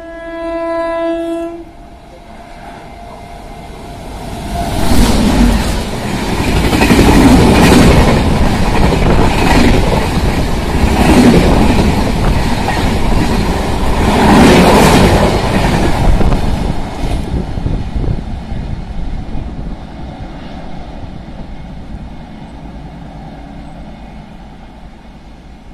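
A WAP-7 electric locomotive's horn sounds once, steady, for about a second and a half. An express of AC chair cars then rushes past at about 110 km/h: loud wind and wheel noise with a rhythmic clatter of wheels over rail joints, fading away as the train recedes.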